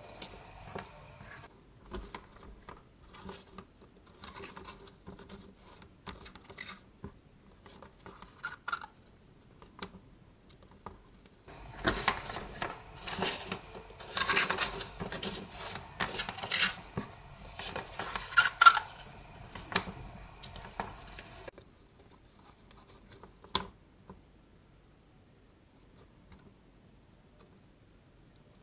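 Cardboard strips cut from toilet rolls rubbing, scraping and clicking against each other in the hands as they are bound together with cord. The handling is soft at first, gets louder and busier through the middle, and there is one sharp click after it.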